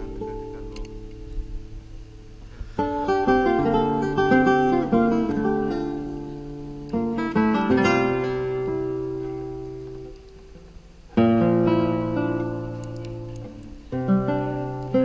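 Background music on acoustic guitar: plucked and strummed chords that ring and fade, a new chord struck every three to four seconds.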